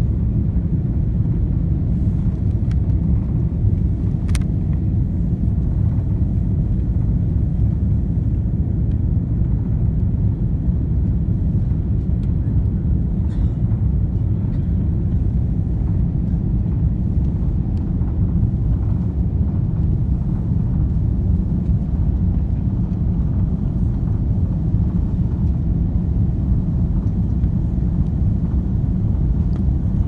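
Steady low rumble inside the cabin of an Airbus A330-300 on approach with its flaps extended: engine and airflow noise. A single sharp tick sounds about four seconds in.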